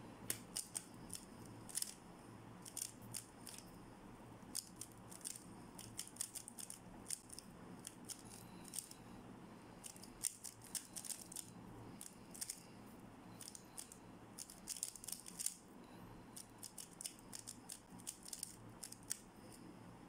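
MoYu RS3M 2020 3x3 speedcube turned rapidly by hand: quick runs of faint plastic clicks and clacks as the layers turn, broken by short pauses between move sequences.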